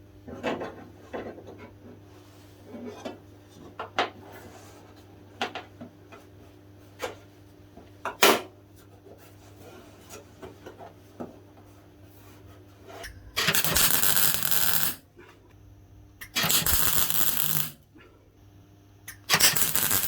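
Scattered knocks and clicks of a panel and tools being handled, then three short bursts of MIG welder crackle, each about a second and a half long, as a steel patch is tack-welded into the bottom of a car door.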